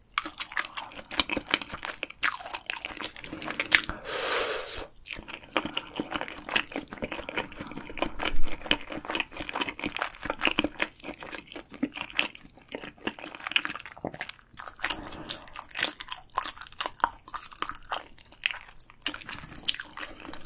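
Close-miked eating sounds: a person chewing and crunching food in the mouth, a dense run of small crunches with short pauses.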